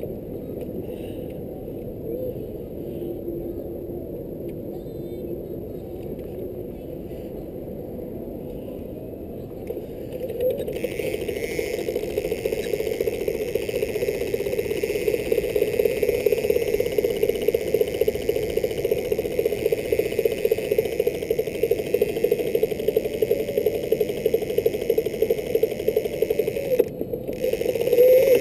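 A small fishing boat's motor running steadily. About ten seconds in, a louder whirring joins it, then cuts off suddenly shortly before the end, followed by a brief clatter.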